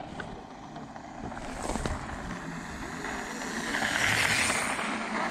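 Mountain bike rolling past close by on a gravel dirt trail, knobby tyres crunching on the loose stones, growing louder to a peak about four seconds in as it passes.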